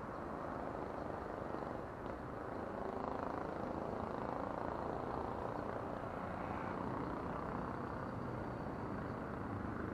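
Steady hum of distant road traffic, even throughout with no single sound standing out.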